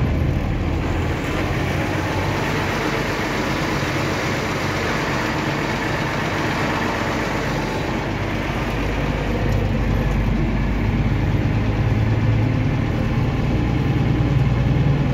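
Unimog truck's engine running steadily with road and cab noise, heard from inside the cab while driving. The engine note grows a little louder about two-thirds of the way through.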